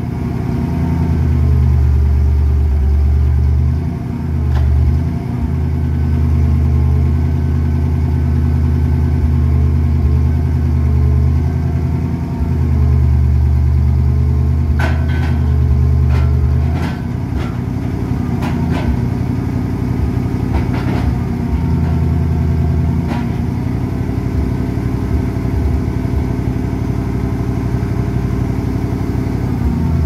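Engine of an International log truck running steadily while its knuckle-boom log loader works, the steady low note changing a little over halfway through. Several sharp knocks and clanks come through the middle part as logs and the grapple are set down in the bed.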